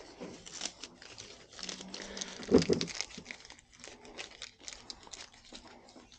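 Paper banknotes and a leather wallet being handled: crinkling and rustling paper with small scrapes and clicks, and one louder bump about two and a half seconds in.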